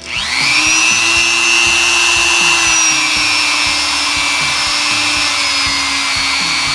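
Dremel rotary tool driving a felt polishing cone through its flex shaft. It spins up with a rising whine as it is switched on, then runs at a steady high whine that sags slightly in pitch partway through. Near the end the spinning felt tip is pressed into a block of red polishing rouge to load it.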